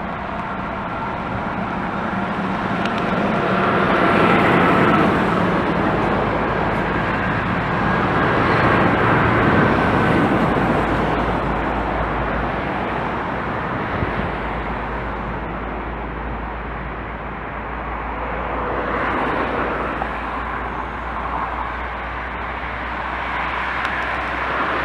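Boeing 787-9's two Rolls-Royce Trent 1000 turbofans at takeoff thrust: a continuous jet noise with a high, steady whine over the first ten seconds, swelling twice as the jet rolls down the runway, easing off, then rising again as it lifts off and climbs.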